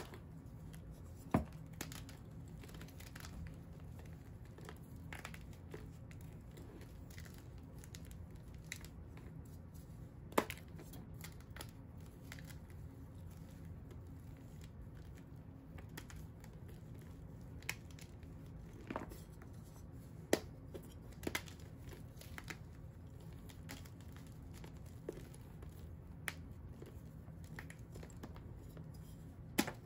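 Fingers crushing and crumbling dyed, dried chalk blocks, with about eight sharp snaps as pieces break, scattered over a faint steady crumbling.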